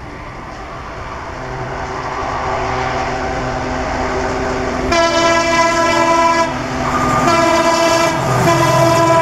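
Indian Railways WDP4 diesel-electric locomotive (EMD 16-cylinder two-stroke engine) approaching with a passenger train, its engine rumble growing steadily louder. About five seconds in its multi-tone air horn sounds, three blasts in a row, the pitch beginning to drop at the very end as the locomotive draws level.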